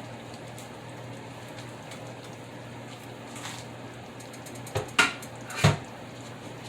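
Pan of gravy and Salisbury steaks simmering quietly over a steady low hum, with three short clinks of kitchen utensils and cookware about five seconds in, the last two loudest.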